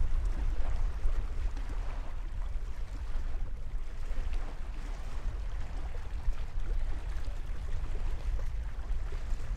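Strong storm wind blowing steadily, buffeting the microphone with a deep, unsteady rumble over a continuous rushing noise.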